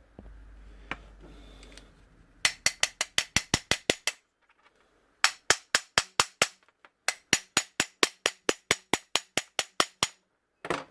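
Hand ratchet clicking in three quick runs of even clicks, about seven a second, with short pauses between them.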